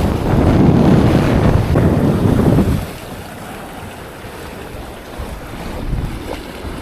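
Strong cold wind buffeting the microphone, a loud rumbling gust for the first three seconds that then drops to a quieter steady rush.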